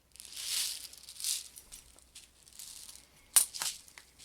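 Plastic 0.12 g airsoft BBs rattling as they are poured into an airsoft shotgun magazine, in a couple of swells, followed by two sharp clicks near the end.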